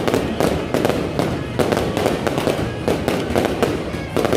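Fireworks going off in a rapid, unbroken run of sharp bangs and cracks, several a second.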